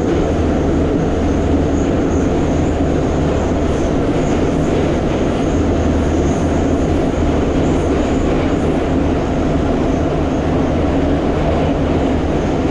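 Metro train running, heard from inside the carriage: a loud, steady noise of wheels on rails and traction motors, with a constant low hum.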